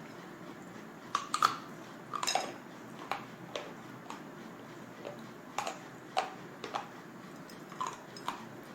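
Crisp, sharp crunches of hard slate bar being bitten and chewed: about a dozen brittle snaps at uneven intervals, the loudest cluster in the first two and a half seconds.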